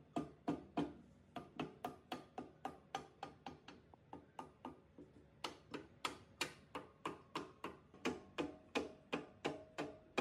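A rapid series of sharp taps, about three to four a second, each with a short ring after it, pausing briefly twice.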